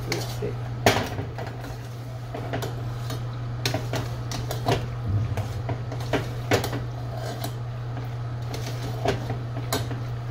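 A utensil stirring and scraping in a stainless steel saucepan, with irregular clinks and knocks against the metal, the loudest about a second in. A steady low hum runs underneath.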